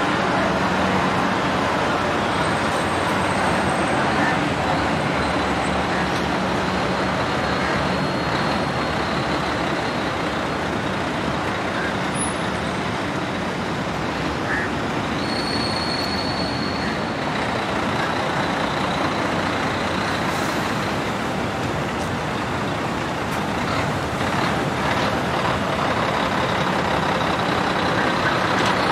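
Steady road traffic noise from vehicles running along a city street.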